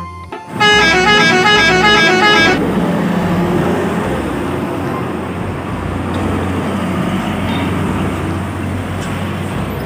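A large road vehicle's multi-tone musical horn plays a quick run of stepped notes for about two seconds. Steady traffic noise from passing engines and tyres follows.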